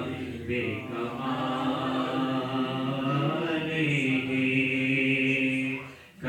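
Male voice chanting a naat (devotional poem in praise of the Prophet), unaccompanied, holding long steady notes and gliding between them. The voice drops away briefly near the end.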